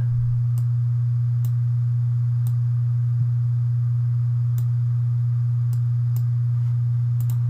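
A steady low hum held at one pitch, with faint computer mouse clicks scattered about once a second as anchor points are dragged.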